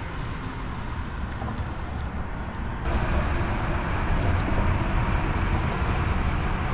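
Steady outdoor noise: a low, fluttering rumble with a hiss over it that grows louder about three seconds in.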